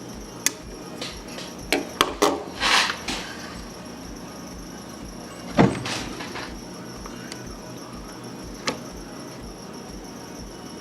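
Scattered clicks and knocks of tools and a small circuit board being handled on a workbench during desoldering, with a short scrape about three seconds in and one louder knock a little past halfway, over faint background music.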